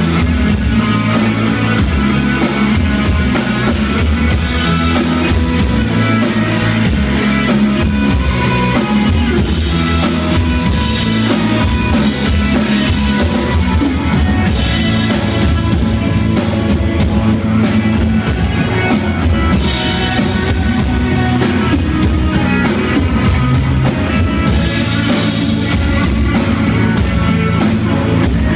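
Live rock band playing at full volume: electric guitars, bass guitar and a drum kit.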